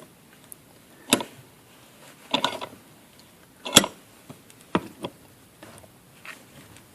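Scattered clicks and knocks of a screwdriver and a bent strip of computer slot-cover metal being handled and set into a drill press vise. A single knock about a second in, a short cluster around two and a half seconds, the loudest knock near four seconds, then fainter taps.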